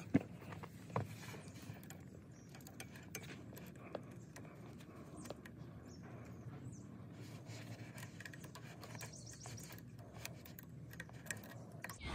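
Hands fitting the carburetor's mounting bolts on a small ATV engine: quiet handling and scraping with a few sharp metal clicks, the loudest just after the start and about a second in, then only faint occasional ticks.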